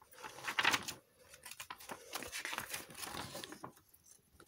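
Kit packaging rustling and crinkling as it is handled: a louder rustle in the first second, then lighter scattered crackles.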